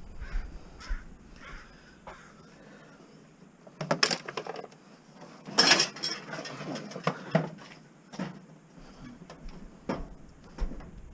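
A crow cawing several times, then metal scrap clattering and clanking as it is handled, loudest about four and six seconds in.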